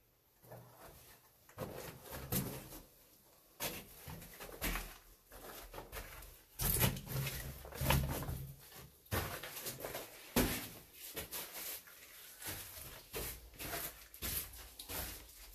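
Footsteps crunching and scraping over loose rock rubble in a mine tunnel, with irregular knocks of shifting stones, loudest in the middle stretch.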